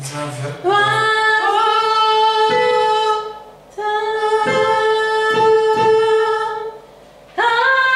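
A singing voice holding long, high notes in three phrases, broken by short pauses about three and seven seconds in.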